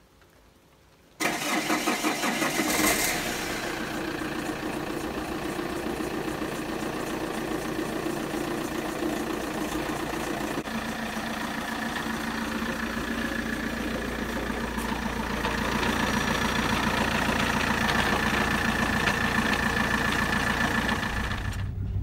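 Saab 9-3 1.9 TiD four-cylinder turbodiesel starting about a second in, flaring briefly as it catches, then idling steadily. The owner says it doesn't sound healthy and takes the idle noise for a failing dual mass flywheel.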